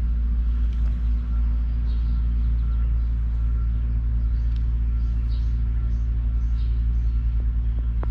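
Steady low rumble and hum, like a machine or motor running, with no sudden sounds.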